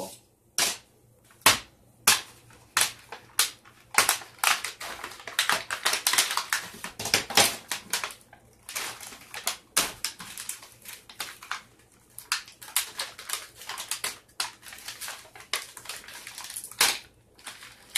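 A plastic Lunchables tray and its film lid being pulled and peeled open by hand: irregular crinkling and crackling plastic with sharp clicks, busiest a few seconds in.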